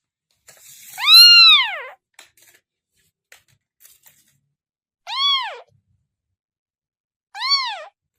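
A kitten meowing three times, each call rising and then falling in pitch. The first meow, about half a second in, is longer and louder; two shorter ones come near five and seven and a half seconds in.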